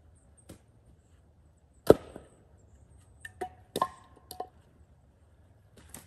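Split firewood pieces knocking together as they are handled and tossed onto a woodpile: one loud sharp knock about two seconds in, then a clatter of hollow, briefly ringing wooden clunks around four seconds in.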